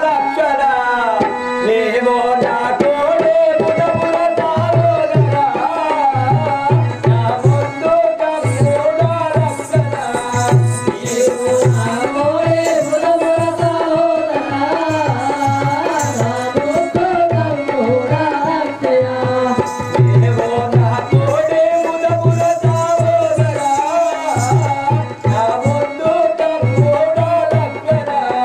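Music: a wavering melodic line, most likely sung, over a hand drum playing a repeating pattern of deep strokes.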